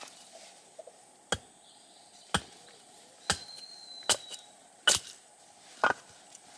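Six sharp blows about a second apart, splitting a piece of very hard hardwood firewood that resists splitting.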